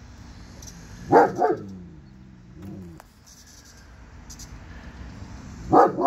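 A dog barking: two quick barks about a second in, and one more near the end.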